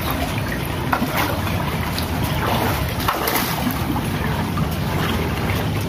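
A hooked freshwater pomfret (bawal, a pacu) thrashing and splashing at the pond surface while it is played and lifted out on the line, with scattered sharp splashes over a steady low rumble of wind on the microphone.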